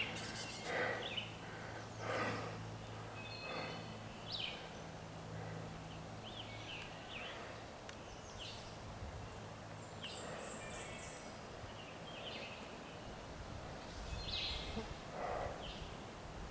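Scattered short bird chirps and calls in woodland, over a faint low hum that fades out about halfway through, with a few soft rustling sounds.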